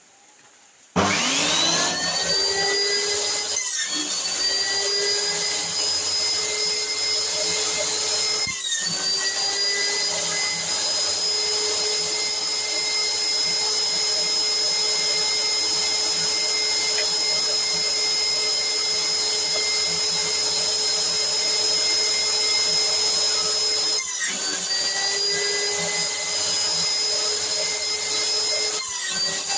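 Electric motor of a homemade jointer and table saw starting about a second in and spinning up to a steady whine. It briefly drops out four times, each time climbing back up to speed.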